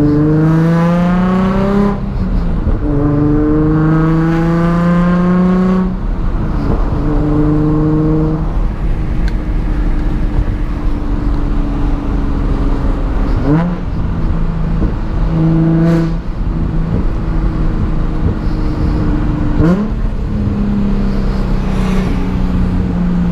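Nissan 350Z's 3.5-litre V6 heard from inside the cabin, accelerating through two gears, the revs climbing steadily and dropping at each upshift. It then cruises at steady revs, with a few quick jumps in revs.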